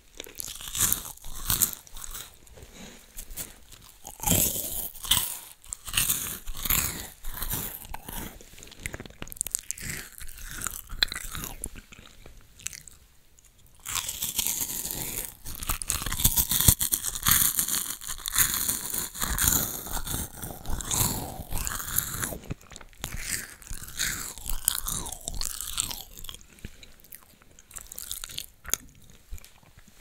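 Close-up crunching and chewing of a Loacker wafer biscuit, crisp bite after bite, with a busier stretch of crunching around the middle.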